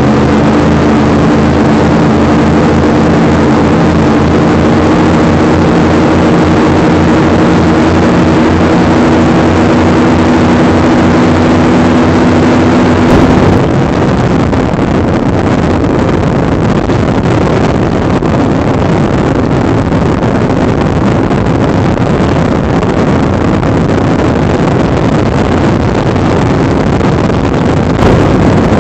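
Performance powerboat engine running steadily at speed, a constant-pitch drone with a deep rumble. After about thirteen seconds the engine drops back and a loud rush of wind and water across the open cockpit takes over.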